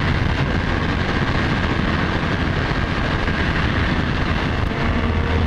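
Yamaha YZF-R1's inline-four engine running steadily at highway cruising speed, mixed with heavy wind rush on the microphone.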